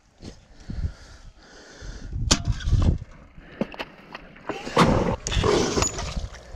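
Close handling noise: a cloth sack rustling and being worked by hand, with several sharp knocks, the loudest stretch of rustling about five seconds in.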